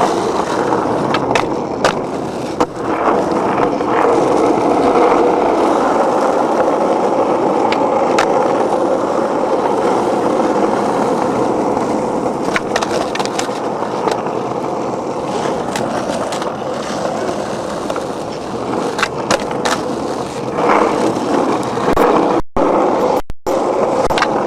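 Skateboard wheels rolling continuously over concrete, a steady coarse rolling rumble with scattered sharp clicks and knocks from the board. The sound cuts out completely twice, briefly, near the end.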